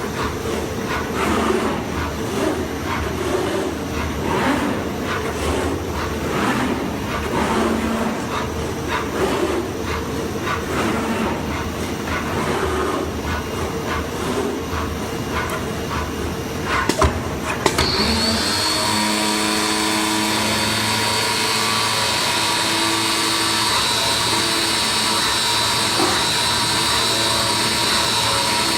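Flatbed digital cutting machine running, with uneven mechanical noise. About two-thirds of the way in come a couple of sharp clicks, and then a steady high whine with a hum beneath sets in.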